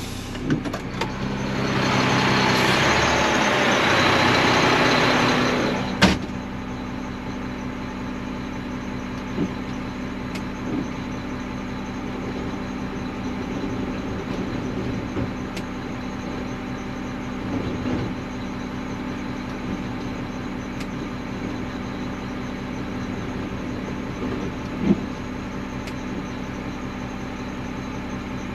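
Garbage truck's diesel engine idling steadily in the cab. About two seconds in, a loud hiss lasts some four seconds and is cut off by a sharp knock. A few faint knocks follow later.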